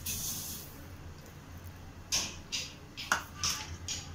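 Sugar poured from a plastic measuring cup into a steel pan of water, a short hiss at the start, followed about two seconds in by five short light taps.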